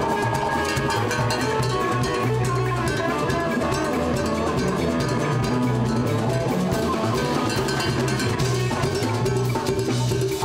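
Latin dance-band music with a drum kit, hand percussion and a bass line keeping a steady groove.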